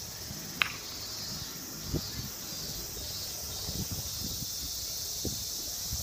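Steady high-pitched outdoor hiss with a few soft low thumps, and one sharp short click about half a second in.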